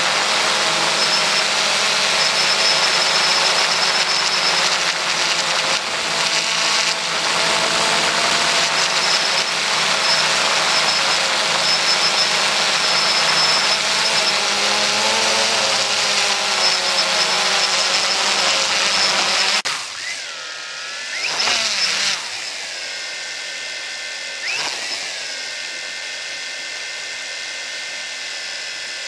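XK X380 quadcopter's electric motors and propellers running in flight, a loud steady whir with a whine riding on it, heard from the onboard camera. About 20 seconds in it drops suddenly to a quieter, steady high whine as the drone comes down on the ground.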